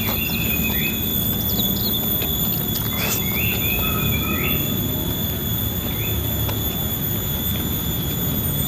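Steady, high-pitched insect whine, the 'nging' of a wild animal that makes the surroundings noisy. A few short chirping calls come in near the start and again about three seconds in.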